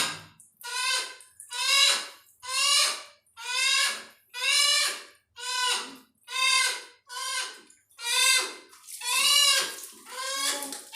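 Pet hill myna calling over and over while it is being washed, one loud call about every 0.8 seconds, each about half a second long.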